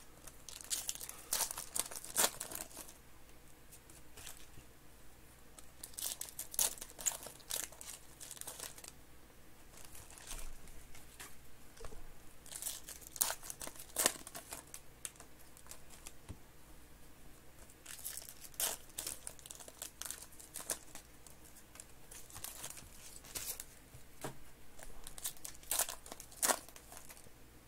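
Clear plastic trading-card pack wrappers crinkling and tearing as packs are opened by hand, in six or so short bouts with quieter stretches of card handling between them.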